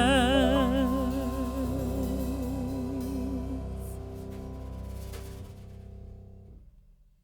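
End of a background song: a singer holds one long note with vibrato over sustained accompaniment, and the music fades out to silence near the end.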